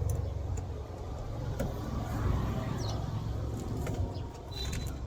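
Low, steady rumble of a motor vehicle, with scattered light clicks and taps over it.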